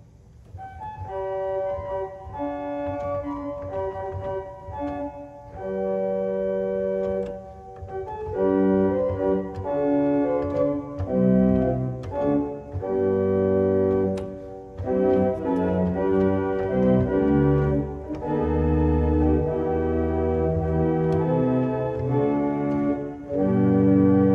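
1890 Roques pipe organ played on its Récit (swell) manual: sustained notes and chords on the Flauta Armónica 8' (harmonic flute), with the Flauta Octaviante 4' joining by the middle. Near the end the Celeste 8' and Gambe 8' string stops are added and the sound grows fuller and louder.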